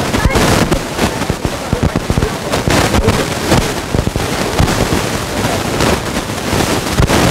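Wind buffeting the microphone: a loud, irregular rumble with crackling and sudden low thumps.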